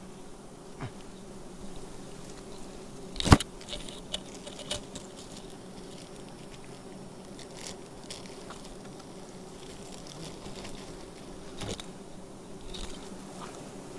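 Wild giant honey bees (Apis dorsata) buzzing in a steady drone around their open comb, with one sharp knock about three seconds in and a few lighter clicks.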